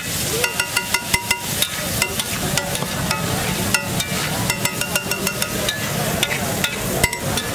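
Metal spatula striking and scraping a large flat iron tawa griddle in quick, irregular clangs, each ringing briefly, over the sizzle of egg masala frying.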